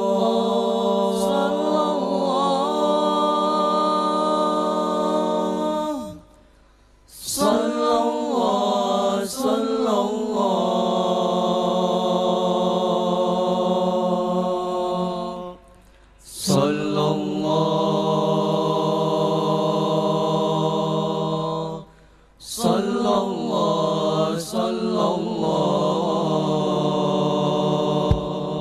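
A group of voices chanting a devotional melody without instruments, in long held phrases with three short breaks for breath.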